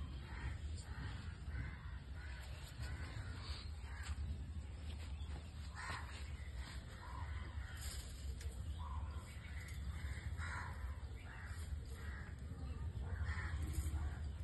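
Crows cawing repeatedly over a low steady hum, with a few short scrapes and clicks.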